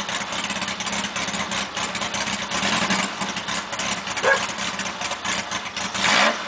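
Dune buggy's 1855cc air-cooled VW flat-four engine running steadily at low revs as the buggy creeps along, an engine that, by its owner's account, runs poorly from carburetor trouble. A brief sharp sound cuts in about four seconds in.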